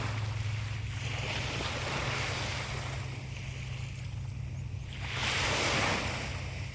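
Sea waves washing onto the shore, the rush swelling and falling twice, loudest about five seconds in, over a steady low rumble.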